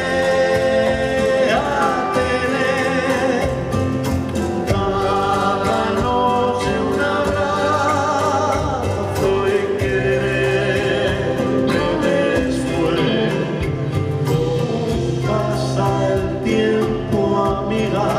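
Live band music: two acoustic guitars and an upright double bass playing a song, with singing over them.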